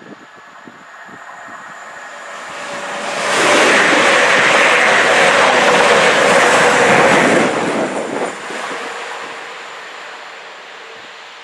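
A train passing non-stop through a station at speed: its rush builds over the first few seconds, runs loud for about four seconds as it goes by, then trails away.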